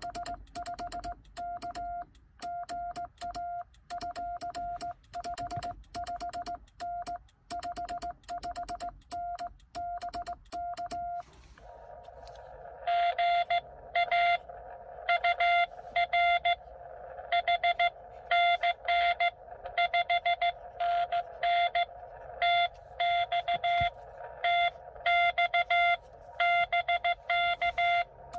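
Morse code sent on a home-made cootie (sideswiper) key: the Xiegu X6100 transceiver's sidetone beeps on and off, with a sharp click from the key's contacts at each element. About eleven seconds in the sending stops and another station's Morse reply comes in on the same pitch, louder, over the steady hiss of the receiver's narrow CW filter.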